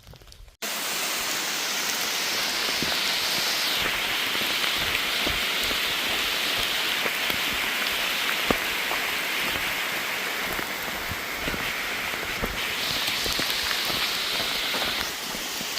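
Heavy rain falling steadily, with many single drops ticking close by, starting abruptly about half a second in.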